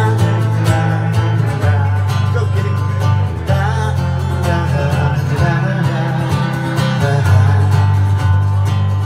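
Live band music: electric guitar strumming over a bass line and a steady beat, with a man singing.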